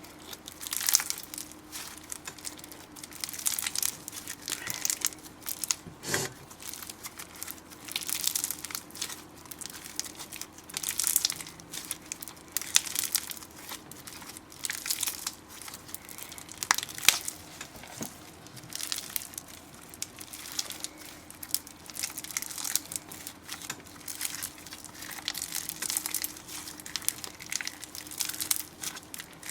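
Slime being squeezed and worked by hand, making irregular sticky crackling and squelching every second or two, with a couple of sharper pops.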